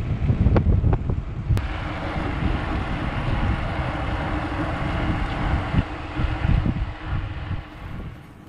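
Wind buffeting the microphone, with a rushing hiss over a low rumble. A few sharp clicks come in the first two seconds, and the sound dies away near the end.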